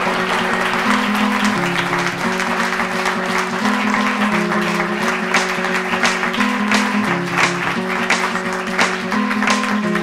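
Audience applause mixed with instrumental music, a melody of plucked-string notes changing about every half second.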